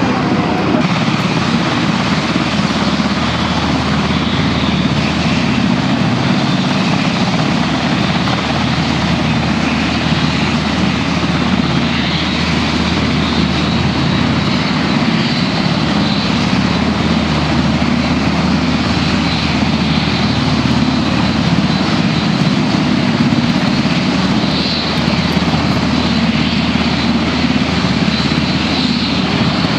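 Aircraft engines running steadily and loudly at an air base, a continuous dense drone with a steady low hum and a faint high whine.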